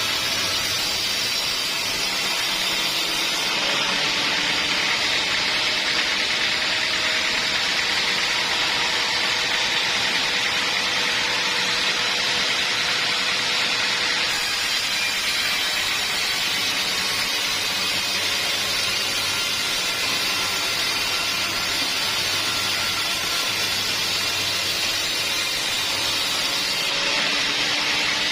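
Sawmill saw running steadily through a teak log, a continuous loud hissing whine of the blade in the wood with a low machine hum beneath.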